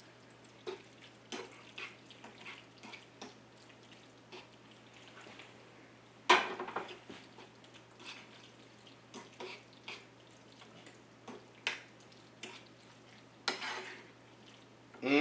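A utensil scraping and clinking against a pan as venison and noodles are stirred, with light frying. The scrapes come in short, scattered strokes, with louder ones about six seconds in and near the end.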